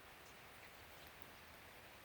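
Near silence: a faint, steady hiss with a few faint, brief high ticks.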